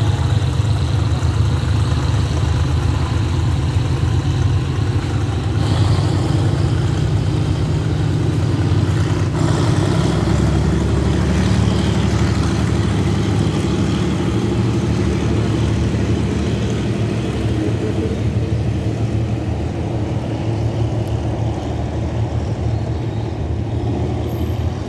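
Passenger train pulling out of the station behind a GE GEK-class diesel-electric locomotive: a steady low engine drone that shifts in pitch about ten seconds in and eases slightly as the train draws away.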